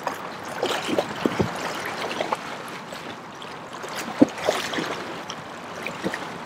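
Pool water splashing and sloshing as children swim, with irregular splashes from their kicks and strokes; the sharpest splash comes about four seconds in.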